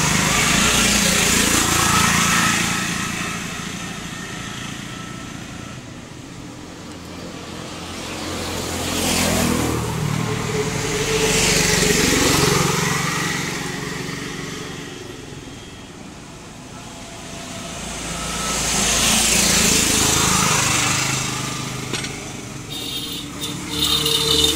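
Motor vehicles passing by, the sound swelling and fading three times: at the start, about twelve seconds in, and about twenty seconds in.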